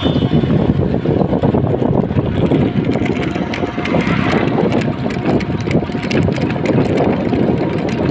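Street traffic heard from a moving cycle rickshaw: a motorcycle running alongside and a CNG auto-rickshaw's small engine passing close, over a steady low road and wind rumble.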